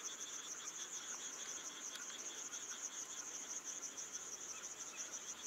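Night insects, crickets, chirping steadily in chorus: a continuous high trill with a lower chirp pulsing several times a second beneath it.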